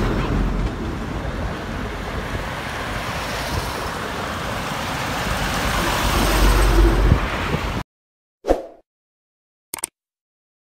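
Laden container lorry driving past close by: engine and tyre rumble over steady traffic and wind noise on the microphone, growing louder to a peak about seven seconds in. The sound then cuts off abruptly, followed by a short whoosh and a couple of mouse-click effects from a subscribe-button animation.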